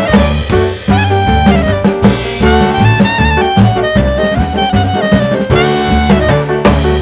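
Upbeat jazz background music: a saxophone-like horn melody over walking bass and drums.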